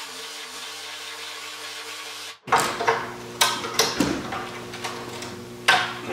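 A steady hum that breaks off a little over two seconds in, followed by sharp metallic clanks and knocks as a Triumph TR6 steel windshield frame is stripped of its trim with tools, about four loud strikes in the second half.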